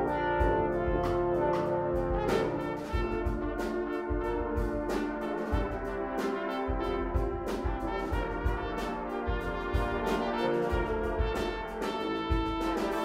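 Brass choir of trumpets, horns, trombones and tubas playing sustained chords over a steady percussive beat. The deep bass drops out for a couple of seconds twice.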